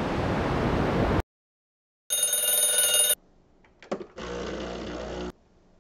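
A rising whoosh that cuts off about a second in, then a ringing tone about a second long. Next comes a click as the button of a Breville espresso machine is pressed, then about a second of the machine's steady hum, which stops abruptly.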